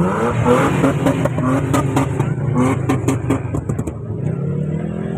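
Supercar engine revving up at the start, then settling to a steady idle, with a run of sharp cracks about two to four seconds in.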